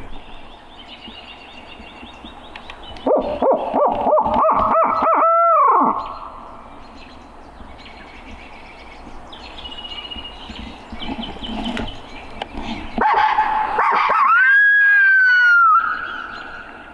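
Hand-blown barred owl locator call used to make roosted turkey gobblers shock-gobble. About three seconds in comes a quick run of hooting notes ending in a long drawn-out note that rises and falls. Near the end one long hoot rises, holds and falls away.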